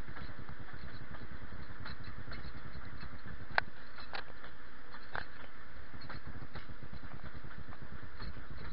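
Narrow-gauge passenger train heard from inside an open carriage as it runs along the track: a steady low rumble, with a few short high squeaks and clicks from the wheels, the loudest about a third of the way in.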